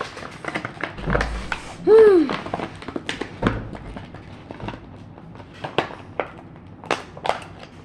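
Crackling and clicking of plastic packaging being worked and pulled at to free a cheap Rubik's-type cube, with a few dull knocks and a short vocal sound about two seconds in.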